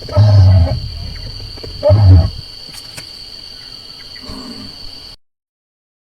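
Deep, low booming calls offered as the voice of the extinct giant moa, a reconstructed sound effect rather than a recording of a living bird. Two loud calls, each under a second and about two seconds apart, are followed by a fainter one, over a steady high hiss. The sound cuts off abruptly about five seconds in.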